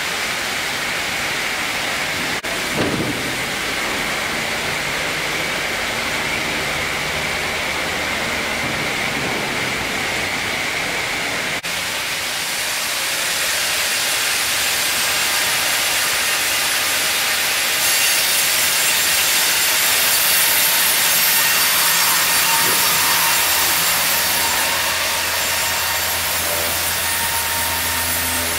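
Industrial sawmill line running, with band saws cutting through logs: a steady, loud noise of saws and machinery. It shifts abruptly about two and a half seconds in and again about twelve seconds in, and grows louder from there.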